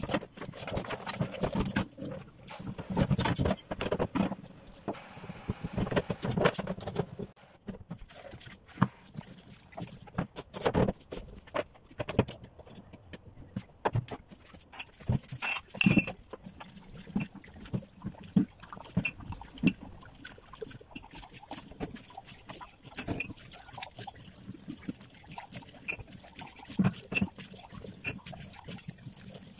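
Tap water running into a stainless-steel sink as dish-rack parts and kitchenware are rinsed and handled, with frequent knocks and clatters. The water is heaviest in the first several seconds; after that, mostly separate knocks and splashes.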